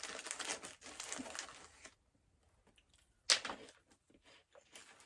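Crinkling of snack packaging and crunching of pizza crackers: quick crackly strokes for about two seconds, a short pause, then one sharp loud crackle a little over three seconds in, followed by scattered smaller crackles.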